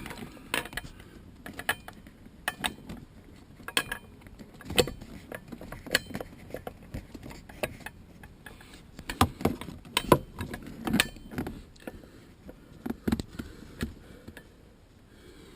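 Irregular light clicks and knocks of shifter parts being handled and pressed into place, a few close together about two-thirds of the way through.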